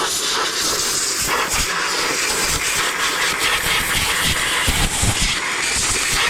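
Air blower blowing debris off a combine corn head: a steady, loud rushing hiss of air with an uneven low rumble beneath.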